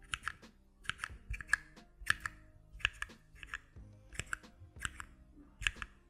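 CHERRY MX linear mechanical key switches in a switch tester pressed one after another, about one and a half presses a second. Each press gives a pair of sharp clacks as the stem bottoms out and springs back to the top, with no click or tactile bump.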